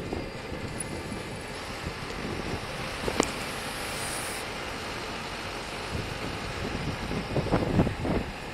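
Steady road and traffic noise from a bike-mounted camera rolling at about 30 km/h behind a bus, with a sharp click about three seconds in and a few thumps near the end.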